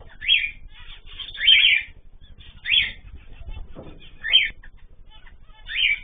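Small aviary finches calling: five short, sharp calls, about one every second and a half.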